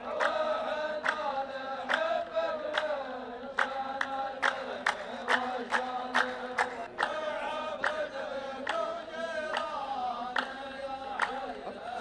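A row of men chanting in unison with handclaps: the chorus of a Saudi qalta poetry duel sings back the poet's verse. The claps come about every half second through the drawn-out chant.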